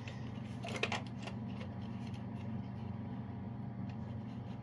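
A few brief clicks and rattles of handling about a second in, over a steady low hum.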